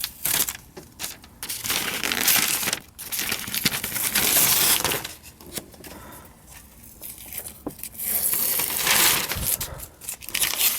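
Masking tape being peeled off and masking paper pulled away and crumpled: three long stretches of rustling and tearing, with scattered clicks and crinkles between them.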